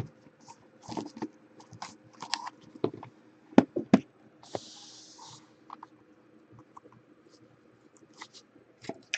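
Shrink-wrapped cardboard trading-card boxes being gripped and shifted by hand: scattered clicks, taps and crinkles of the plastic wrap, with a short rustle about halfway through.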